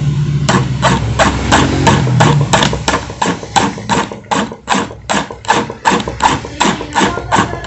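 Flat steel file rasping back and forth over a brass padlock held in a vise, an even run of about three to four strokes a second. It is filing a hammered-in copper plug flush with the lock body to seal the hole.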